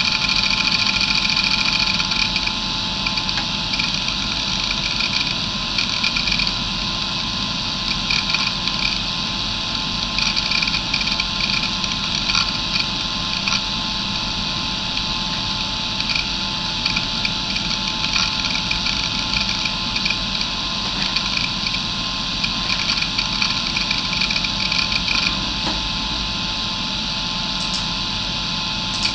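Areal MD2085 85 MB 2.5-inch hard drive with glass platters spinning with a steady high whine, its heads making soft, irregular seek clicks as it reads data while Windows 95 boots.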